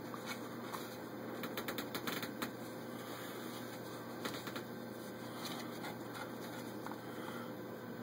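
Handling noise: a cloth sample rustling against a plastic pattern plate, with a quick run of light clicks about two seconds in and a few more around four seconds, over a faint steady hum.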